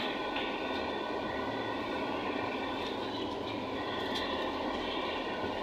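Cabin noise inside a moving ZiU-682G-016.03 trolleybus: a steady rumble of the running trolleybus and its tyres on the road, with a faint steady whine.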